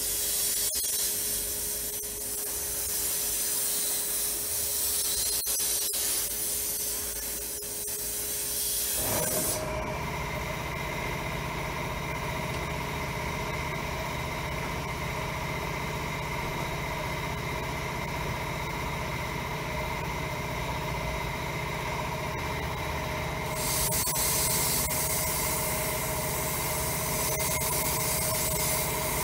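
Sandblast cabinet's blast gun hissing as compressed air and abrasive spray onto a rusty steel bolt. About nine seconds in, a steady machine hum joins and the hiss eases, then comes back strong near the end.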